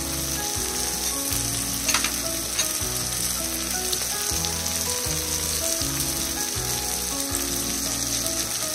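Onions, tomatoes, dry red chillies and garlic sizzling steadily in oil in an aluminium pressure cooker: the tempering for Andhra pappu frying, with turmeric just added. Two light clicks come about two seconds in.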